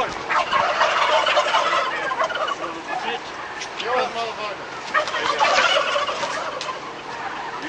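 A crowded flock of domestic turkeys calling all at once: a dense, continuous din of many short overlapping calls.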